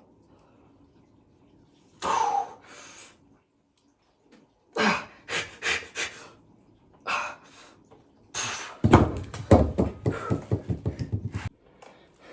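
A man breathing hard from exertion: several sharp, noisy exhales, then a fast run of panting breaths for a couple of seconds near the end.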